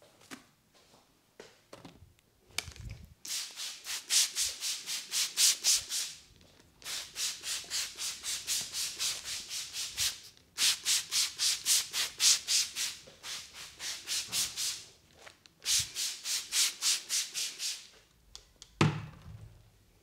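Hands scrubbing rapidly through hair over the scalp in a head massage: a rhythmic rustling rub at about three to four strokes a second, in four runs with short pauses. A low thump comes near the end.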